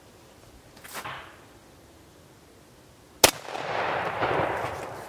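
A single 12-gauge shotgun shot about three seconds in, its report trailing off over the next second and a half. The shell is a homemade load of about 70 steel brads, about 7/8 inch long, packed head up.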